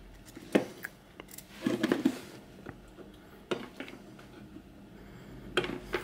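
Scattered clicks and light knocks of test leads being handled: the clips are taken off a USB breakout board and the leads' banana plugs pulled from a bench multimeter's jacks.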